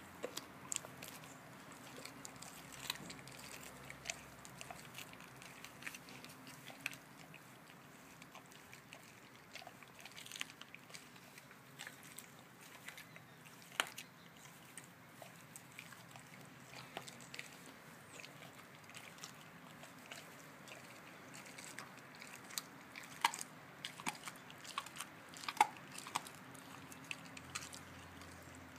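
A Rottweiler chewing on raw lamb ribs: irregular crunches and sharp cracks of teeth on bone. The cracks come thicker and louder near the end.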